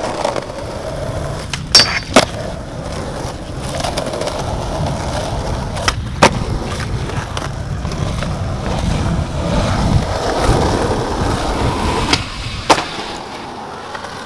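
Skateboard wheels rolling over rough concrete in a steady rumble, with a few sharp clacks of the board: two about two seconds in, one around six seconds and one near the end.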